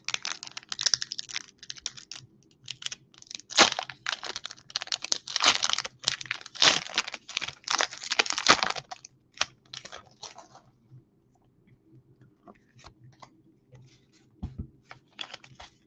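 Foil wrapper of a Pokémon Fusion Strike booster pack crinkling and being torn open by hand, a dense run of crackles for about the first nine seconds, then only scattered small rustles and clicks.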